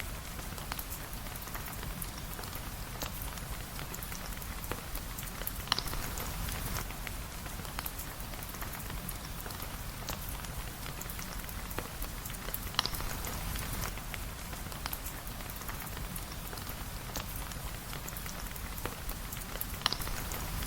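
Steady rain falling on a surface, with a constant patter of fine drops. Three louder single clicks stand out, about seven seconds apart.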